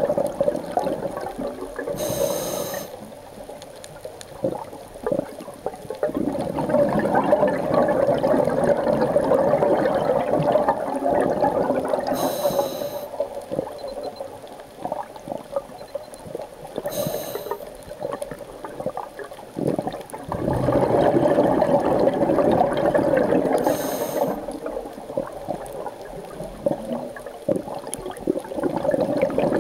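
Scuba diver breathing through a regulator underwater: a short hiss on each inhale, then a long, loud bubbling on each exhale, about four slow breaths several seconds apart.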